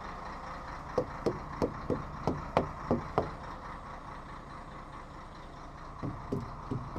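Truck tyres being struck with a small mallet, giving dull thuds: eight quick strikes about a second in, then three more near the end. This is a check for a flat tyre after a suspected puncture. A truck's diesel engine idles steadily underneath.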